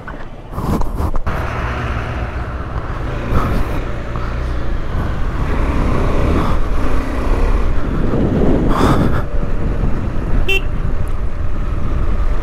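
KTM 390 Adventure's single-cylinder engine running with wind rumble while riding, with a short horn beep near the end.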